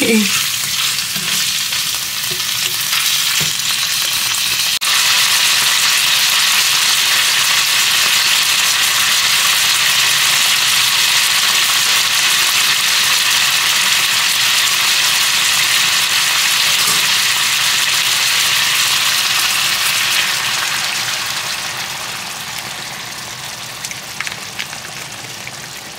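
Chicken pieces sizzling in a hot nonstick skillet, stirred with a slotted spatula at first. The steady sizzle jumps louder about five seconds in and dies down over the last few seconds as coconut sauce is poured over the chicken.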